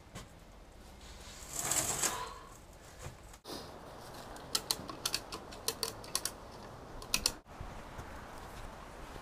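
A brief scraping rush about two seconds in, then a run of sharp, irregular metallic clicks and clinks from a shop engine hoist and its chain being worked beside a steel hull.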